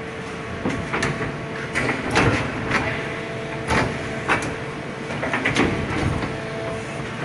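Okuma MC-5VA vertical machining centre running under test: a steady hum with two held tones, broken by a string of sharp metallic clacks and knocks at irregular intervals, loudest around two seconds in and again around four.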